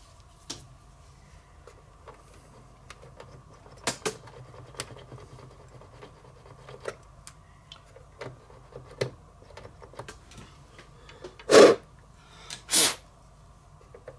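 Clicks and knocks of the Sanyo M2420 radio cassette recorder being handled as its mains plug is worked in a power socket suspected of poor contact, over a faint steady hum. Two louder short bursts come about a second apart near the end.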